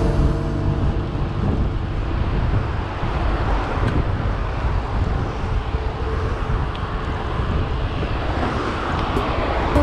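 Wind rushing over the microphone of a camera on a moving road bike, with steady rolling road and street-traffic noise underneath.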